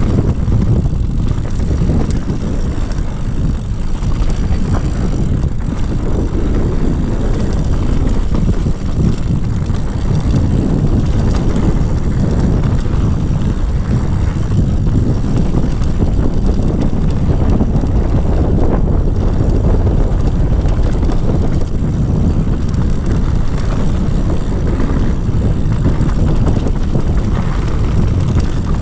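Mountain bike running fast down a dirt trail: steady, loud wind rushing over the action-camera microphone, with the tyres rumbling and rattling over loose gravel.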